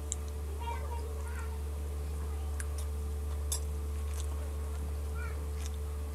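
Eating sounds: a metal fork clicking a few times against a plate of noodles, over a steady low hum. A few faint short calls can be heard in the background.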